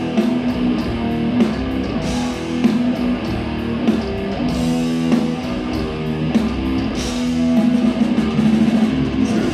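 Death metal band playing live: distorted electric guitar riffing on held low notes over a drum kit with cymbal hits.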